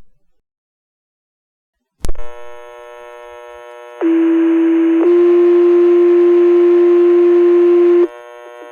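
Dispatch radio channel keying up with a click about two seconds in, then a two-tone sequential page: one steady tone for about a second, then a second steady tone at a slightly different pitch for about three seconds, with hiss, ending abruptly. These are the alert tones that set off the firefighters' pagers for the call.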